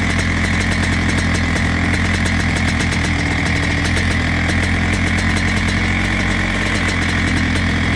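Rotax Max 125cc two-stroke single-cylinder kart engine idling steadily at about 2,500 rpm while the kart is stationary, heard from close on board.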